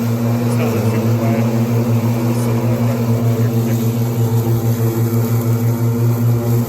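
Ryobi 54-inch battery-powered zero-turn mower running, giving a steady hum.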